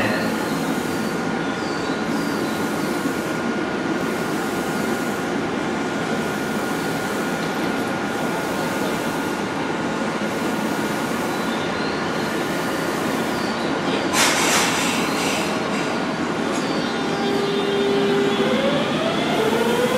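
Tobu 100 series Spacia electric train at standstill, then starting off: a steady hum, a short hiss about 14 seconds in, and from about 17 seconds a steady tone followed by a set of rising whines from its GTO-VVVF inverter as the train accelerates away.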